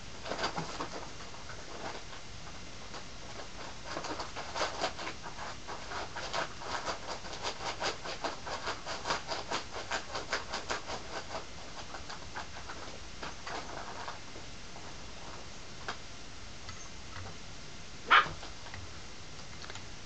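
Puppy panting quickly in the background, about three breaths a second, then one short sharp sound near the end.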